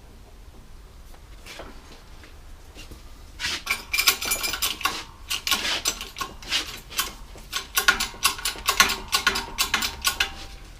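Steel parts clinking and clanking together as press plates and a chunk of stainless steel are handled and set in place. Quiet at first, then from about three and a half seconds in a quick, irregular run of sharp metallic knocks that ring.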